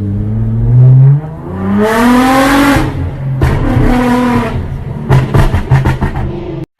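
Nissan GT-R R35's twin-turbo V6 revving. It holds a low steady note for about a second, then rises in pitch twice, then gives a quick run of short sharp bursts near the end before cutting off.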